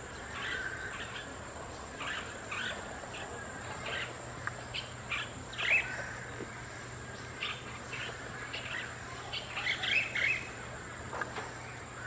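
Several birds chirping in short, scattered calls, busiest near the end, over a steady high-pitched insect drone.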